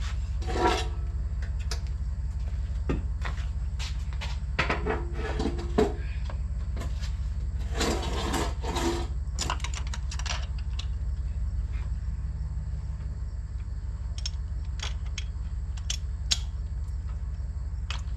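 Hand tools and parts being handled at an engine bay, with rubbing, scraping and scattered clicks over a steady low hum.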